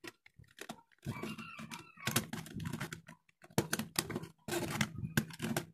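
Irregular run of sharp plastic clicks and taps as a junction box cover is handled and fitted over the spliced wires.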